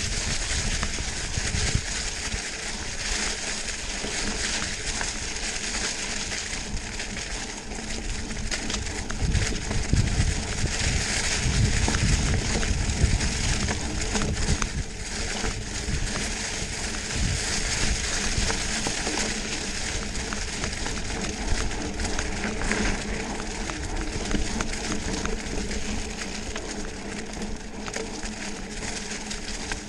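Mountain bike tyres rolling fast over dry fallen leaves on a dirt trail: a continuous crackling rustle, with a low rumble of wind on the microphone.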